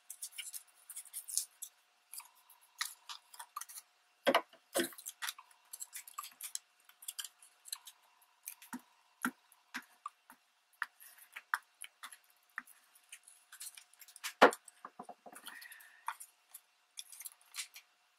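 Torn magazine paper strips being handled, glued and pressed down: light rustling with scattered small clicks and taps, and a few louder knocks, two about four seconds in and one about fourteen seconds in.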